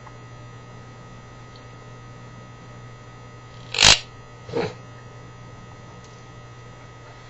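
Steady low electrical hum in a small room, broken about four seconds in by two short sharp noises, the second fainter.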